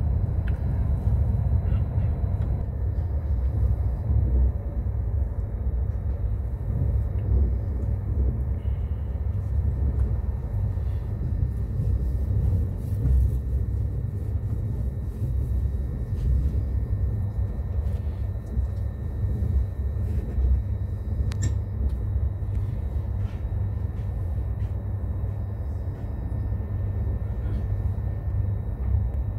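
Steady low rumble of a high-speed train running at speed, heard from inside the passenger car, with a few faint ticks.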